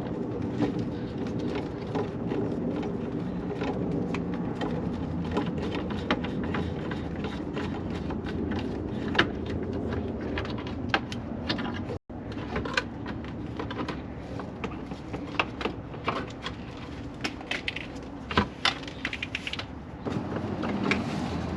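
Scattered clicks and clinks of hand tools and small metal parts being handled while the brake light's bolts are taken out, over a steady low hum.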